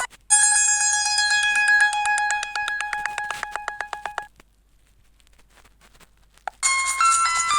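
Fly FS458 Stratus 7 mobile phone playing a built-in ringtone: one electronic tone pulsing rapidly and fading away over about four seconds. After a couple of seconds of silence, the next ringtone starts, a quick electronic melody.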